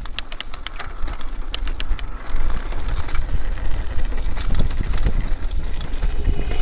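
Steady low rumbling noise with scattered sharp clicks and ticks, the clicks thickest in the first two seconds.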